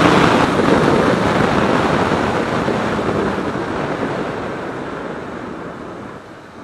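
Wind rushing over a riding motorcycle's microphone, with road noise. It fades steadily as the motorcycle slows down.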